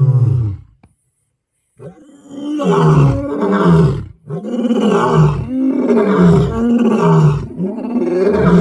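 A large wild animal calling: one call falls away and ends, and after a pause of about a second a run of repeated short calls follows, each dropping in pitch, about two a second.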